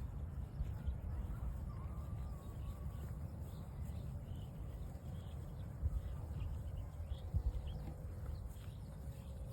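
Cattle grazing, tearing and chewing grass, with a few soft thuds over a steady low wind rumble on the microphone.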